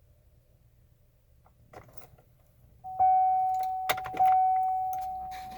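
Faint jangling and clicking of keys, then a bright chime tone that sounds twice, a little over a second apart, each time ringing out and slowly fading.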